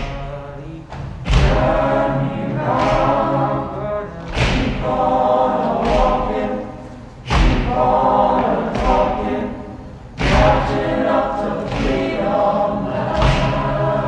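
A choir singing held chords over a deep, steady low accompaniment, each new phrase opening with a heavy hit, about every three seconds.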